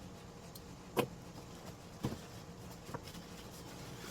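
A few light knocks and clacks from chair parts and packaging being handled during unboxing, the loudest about a second in, over a faint steady hum.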